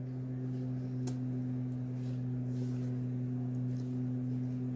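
A steady low hum with a couple of higher overtones, and a faint click about a second in.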